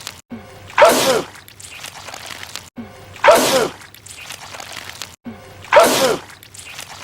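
A man's loud sneeze, the same one looped, heard three times about two and a half seconds apart. Each is a sharp burst with a falling vocal note.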